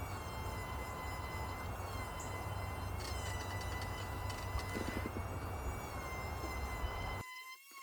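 Electric power sander running on cedar boards: a steady, slightly wavering whine over a dense hiss and rumble. The hiss and rumble cut off suddenly near the end.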